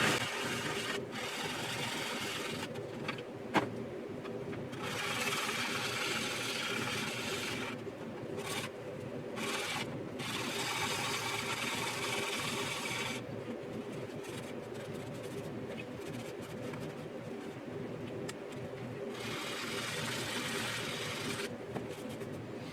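Fine-grit sanding sponge rubbed in circles over a plastic model kit's surface: a scratchy hiss that comes in stretches of a few seconds with short pauses between, and one sharp click about three and a half seconds in. A faint steady hum runs underneath.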